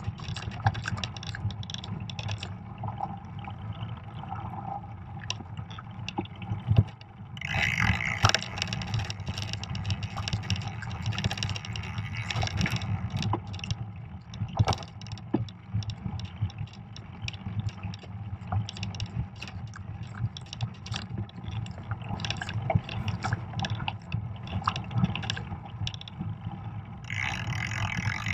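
Fat bike riding over a snow-covered trail, heard from a camera mounted on the bike. The wide tyres roll over snow with a steady low rumble, and the bike gives many sharp clicks and rattles. A brighter hiss comes in about seven seconds in, drops away partway through and returns near the end.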